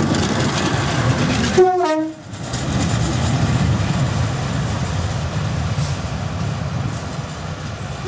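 Class 142 Pacer diesel railbus running past close by, with a short horn note that slides down in pitch just under two seconds in. The sound then drops out abruptly and returns as the steady running of a Pacer's diesel engine as it approaches along the line.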